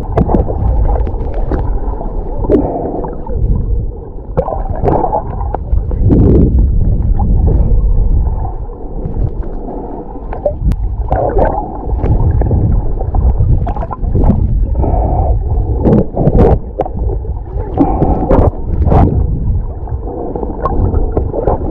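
Muffled underwater sound picked up by a camera held just below the surface: water churning and gurgling around it in uneven swells, with scattered sharp clicks and knocks.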